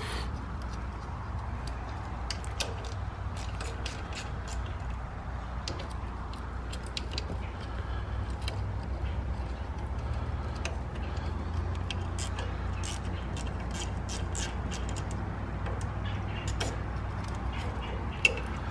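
Scattered, irregular light metallic clicks and taps of a hand-held socket and tools working a bolt in a truck's front suspension, over a steady low hum.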